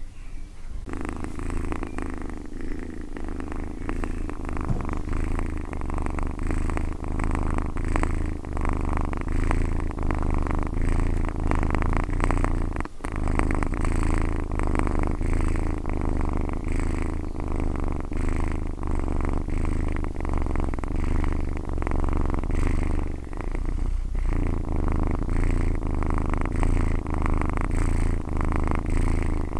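A domestic cat purring close to the microphone, a steady, fast-pulsing low rumble with brief breaks, one about halfway through and one near the end.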